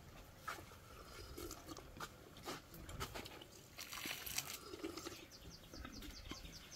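A person slurping and sucking residue from the rim of a metal cooking pot, with scattered wet smacks and lip clicks. A quick run of short, high ticks comes near the end.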